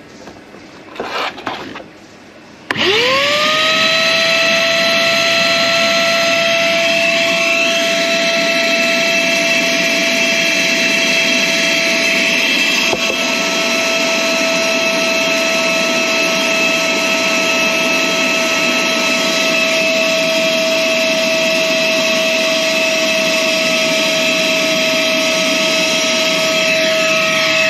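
Ozito wet-and-dry shop vacuum switched on about three seconds in: its motor whine rises quickly to a steady high pitch and runs continuously, sucking on a blocked air-conditioner condensate drain pipe to clear the blockage, then begins to wind down at the very end.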